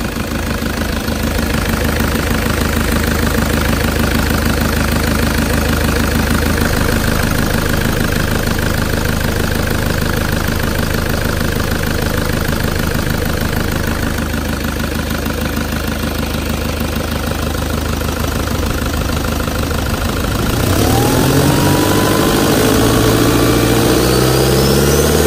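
Toyota Hilux 3.0 L four-cylinder turbo diesel (1KD-FTV) idling steadily, then revved up about twenty seconds in, its pitch climbing until near the end.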